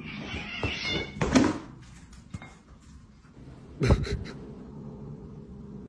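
Domestic cats meowing and yowling at each other during a scuffle, with two louder cries about a second and a half in and near four seconds.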